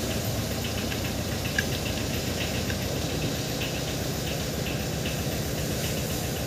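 Steady low mechanical running hum, with faint light ticks scattered through it.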